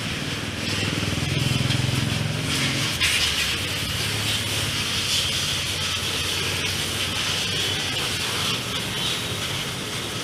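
A high-pressure water jet from a washer hose sprays a motorcycle's rear wheel with a steady hiss, over a low motor hum that is strongest in the first few seconds.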